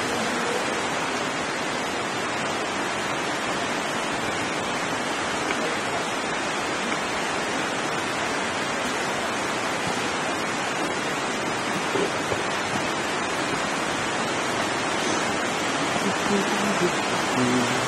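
Steady rush of a fast-flowing creek running over rapids, an even hiss of water. Faint voices come in near the end.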